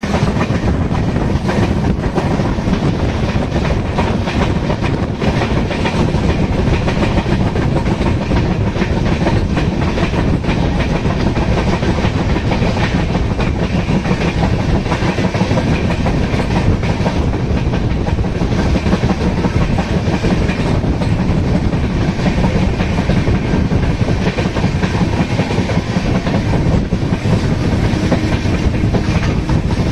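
Train running at speed, heard from on board: a steady rumble of wheels on rail with occasional clacks over the rail joints.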